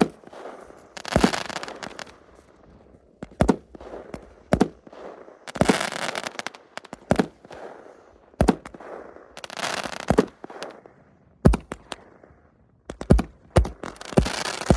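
Fireworks going off: sharp bangs every second or two at irregular intervals, several followed by a short noisy tail, with a quick run of pops near the end.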